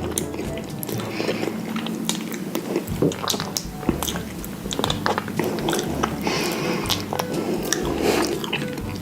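Close-miked biting and chewing of food, with many short crisp crunches.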